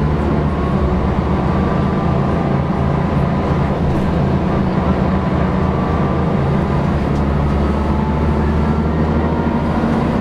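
Mercedes-Benz O405NH bus engine running steadily, heard from inside the passenger cabin as a low drone with a faint whine above it.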